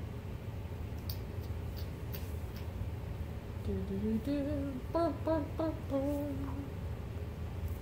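A person humming a wavering, musing "hmm-mm-mm" for about three seconds in the middle, while thinking over an answer. A few faint clicks come before it, and a steady low room hum runs underneath.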